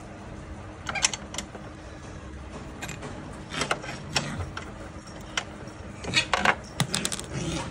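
Scattered metal clicks and scrapes of an Allen key working a hex-socket screw on a scooter's side-stand mounting, tightening it. A few clicks come about a second in, and more follow in the second half, bunched near the end.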